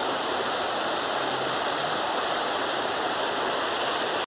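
Muddy rainwater runoff flowing steadily over a stony channel bed.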